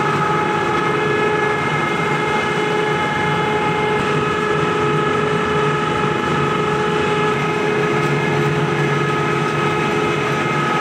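A row of YULONG pellet mills running with their discharge conveyor, pressing rice husk into pellets. It is a loud, steady machine drone with several high steady whining tones held over it.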